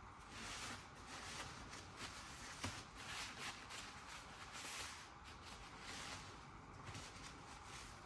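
Paper tissue rubbing over a steel wheel in repeated soft wiping strokes, about one a second, wiping off sprayed-on cleaner and black grime, with one small click partway through.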